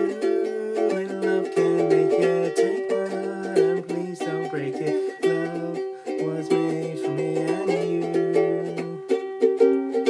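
Ukulele strummed in a steady rhythm, with a man singing a slow melody along with it.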